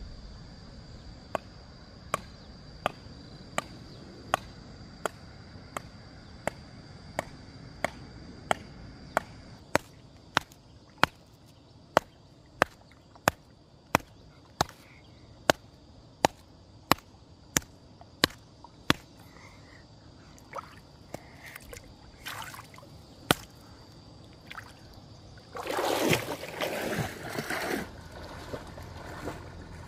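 Sharp knocks repeating evenly, about three every two seconds, for most of the first two-thirds, then a few scattered knocks. Near the end comes a couple of seconds of water sloshing and splashing. A faint steady high whine runs underneath until the splashing starts.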